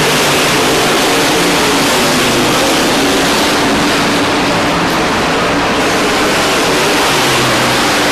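Engines of a field of racing pickup trucks running together on track, a loud, steady wash of engine noise with faint pitches shifting as the trucks go round.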